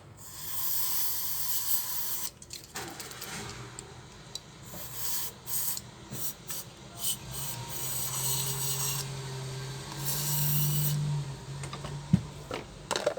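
Repaired electric spice grinder running and grinding, a gritty rasping noise over a low steady motor hum, the grind easing off and picking up again several times. A few sharp knocks near the end.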